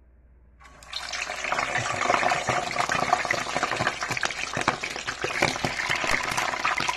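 Boiled pork pieces going into hot oil in a steel saucepan: the oil starts to sizzle and crackle hard just under a second in and keeps spattering densely as the meat fries.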